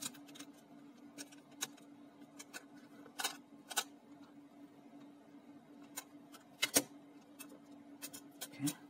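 Plastic casing and metal shield plate of a portable CD player clicking and knocking as they are handled and fitted back together: scattered sharp taps, a few clustered near the middle and toward the end.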